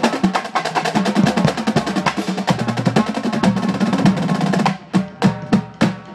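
Marching drumline of snare drums, tenor drums and bass drums playing a fast, dense passage, then four separate unison hits near the end that close the phrase.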